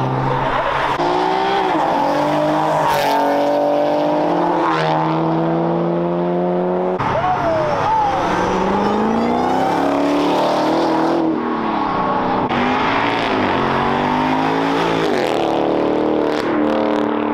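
Cars accelerating hard away one after another, their engines climbing in pitch and dropping back at each upshift, several times over.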